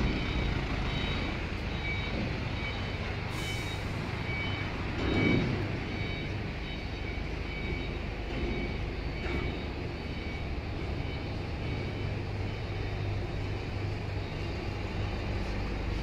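Weichai 290 hp diesel engine of a FAW 6×4 concrete mixer truck running steadily at idle, a low even rumble with a small swell about five seconds in.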